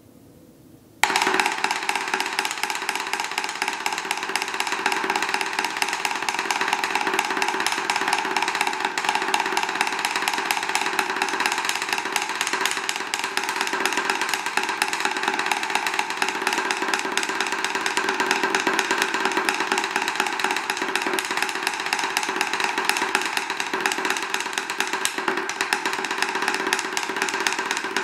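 Wooden drumsticks playing a fast, unbroken roll of double strokes on a Drumometer practice pad, about seventeen strokes a second, starting abruptly about a second in.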